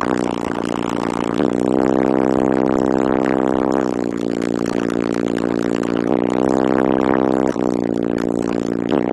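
A 15-inch CVX subwoofer in a sealed box, powered by a CT Sounds 1400.1D amplifier, playing loud deep bass notes. Each note is held for one to two seconds, then a quick pitch slide leads into the next.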